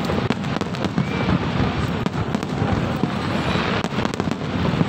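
Large fireworks display with many shells bursting close together: dense, unbroken popping and crackling over a steady low rumble.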